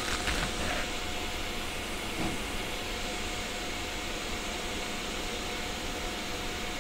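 Steady hissing background noise with a faint constant hum, and a few soft clicks of wires being handled in the first second.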